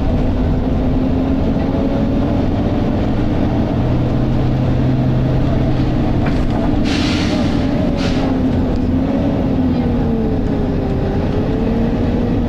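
Volvo B9TL double-decker bus's six-cylinder diesel engine heard from inside the bus while it drives, its note slowly rising and falling as it pulls. A short hiss comes about seven seconds in, with a briefer one just after.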